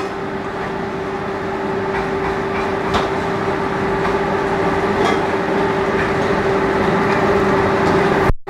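Steady drone of commercial kitchen equipment, with a constant hum held at one pitch and a faint click or two. The sound cuts out briefly near the end.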